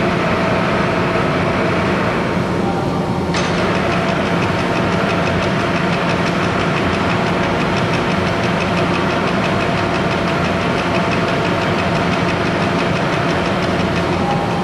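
Cincinnati Hypro vertical boring mill running, its large table turning with a steady mechanical hum of drive motor and gearing. About three and a half seconds in, a higher rattling, evenly ticking sound suddenly joins and keeps going.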